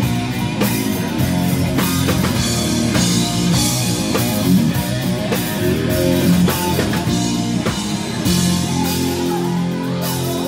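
Rock band playing: distorted electric guitars over a drum kit, going steadily.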